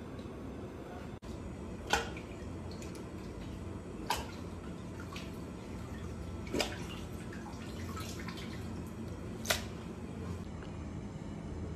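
Pieces of cleaned squid being put into a stainless steel pan: four sharp wet taps a few seconds apart, with a few fainter ones, over a steady kitchen hum.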